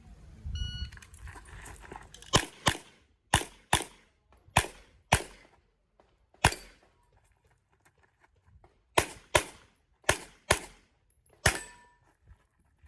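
Shot timer start beep, then a handgun string of about a dozen shots in an IPSC course of fire, mostly fired as quick pairs with pauses between target arrays.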